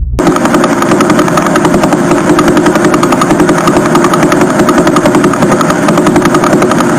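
Sonified pulsar signal: radio pulses from a spinning neutron star turned into audio, heard as a rapid, even, rotor-like pulsing buzz that starts abruptly.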